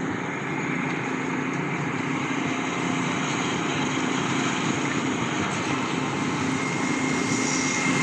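Truck-mounted concrete boom pump's diesel engine running steadily under load as it pumps concrete, a continuous even drone with a low hum.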